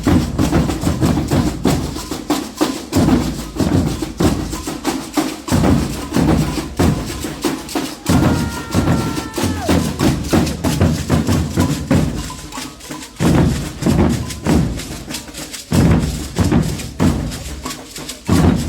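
Street brass band's percussion section playing a steady, driving rhythm on drums and hand percussion.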